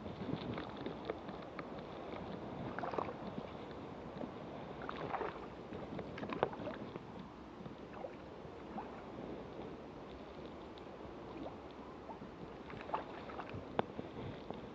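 Water sloshing and lapping close to the microphone, with a handful of short, sharper splashes scattered through it.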